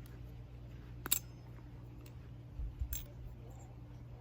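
Balisong trainer handled between flips: a few sharp metal clicks, the loudest about a second in and another near three seconds, with a soft low thump just before the second.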